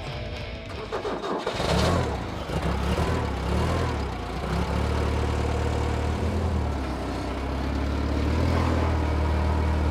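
Forklift engine starting about a second and a half in, revving unevenly for a couple of seconds, then settling into a steady run.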